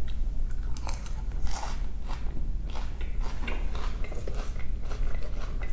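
Close-miked chewing of a mouthful of chicken Cobb salad, the crisp lettuce crunching in irregular snaps.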